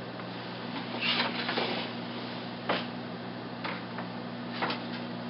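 Scattered wooden clacks and knocks from a wooden floor loom as its parts are handled: a cluster about a second in, a sharp knock near the middle, and a few lighter ones after, over a steady low hum.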